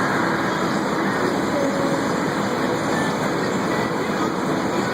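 Dense, steady chatter of a large flock of birds calling together in the trees, many short overlapping calls, with traffic noise underneath.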